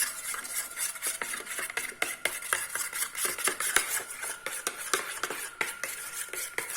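A spoon stirring slime glue and paint in a container, with rapid irregular clicks and scrapes of the spoon against the container.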